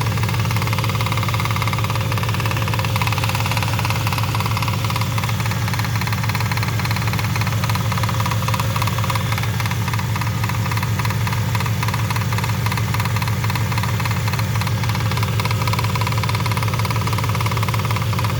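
Porsche Panamera S engine idling steadily with a knocking rattle from under the hood, an intermittent knock that comes and goes.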